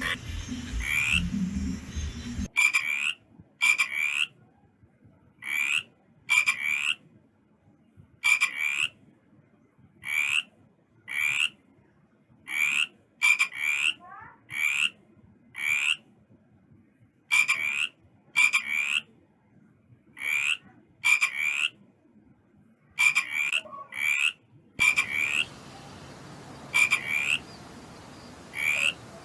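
A frog calling: short croaks repeated about once a second, often in close pairs. A steady background hiss comes in about 25 seconds in.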